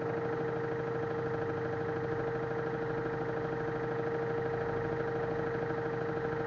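LG F1089ND front-loading washing machine in its spin cycle, the drum turning at a steady speed: a steady motor whine over a hum, unchanging in pitch.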